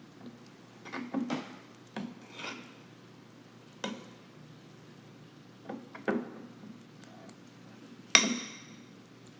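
A spoon stirring glue and borax solution into slime in a bowl, with irregular clinks and scrapes against the bowl. The sharpest, loudest clack comes about eight seconds in.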